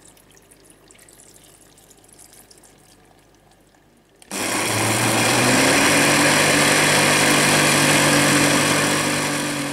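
An electric countertop blender switches on about four seconds in. Its motor spins up within a second to a steady whirr as it grinds soaked soybeans and water into a puree.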